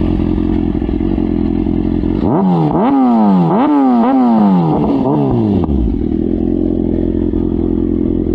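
2017 Kawasaki Ninja ZX6R's 636 cc inline-four, breathing through an aftermarket Bassani exhaust, idling steadily and then revved three times in quick succession a couple of seconds in. The revs fall back each time before it settles to idle again.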